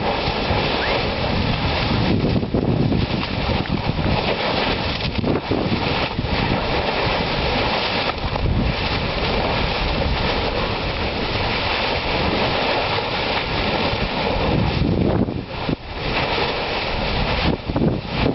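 Erta Ale lava lake churning and spattering against its crater wall, a steady surf-like rush, mixed with wind buffeting the microphone. The rush dips briefly a couple of times near the end.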